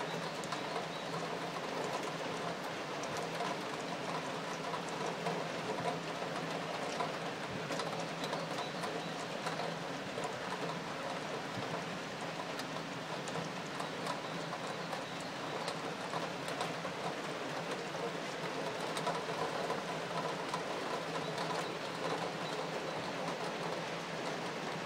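Steady rain falling, heard from an open window, with many individual drops ticking on nearby surfaces over an even hiss and a faint low steady hum beneath.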